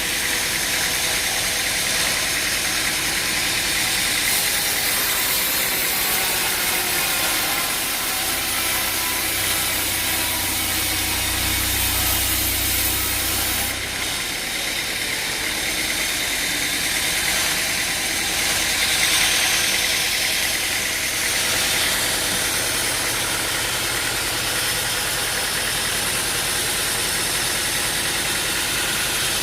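An engine-driven machine running steadily, with a lot of hiss over it. A deeper low hum comes in for several seconds near the middle.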